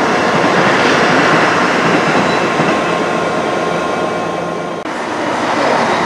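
CrossCountry diesel multiple unit running past at speed, a loud steady rumble of engines and wheels on the rails. Just before the end it cuts to a Great Western Railway Class 165 Turbo diesel unit at the platform, its engine running.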